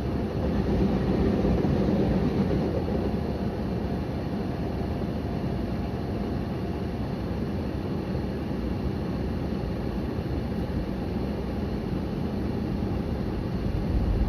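Steady low rumble of a diesel limited express train at a level crossing, a little louder in the first few seconds.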